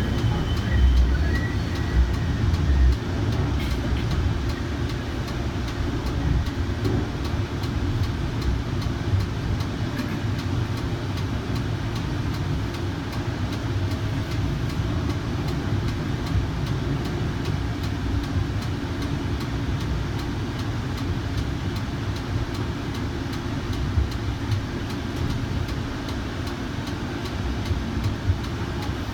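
Kinki Sharyo light rail vehicle running along the track, heard from inside the car: a steady low rumble of wheels on rail. A faint whine from its AC traction drive fades out right at the start.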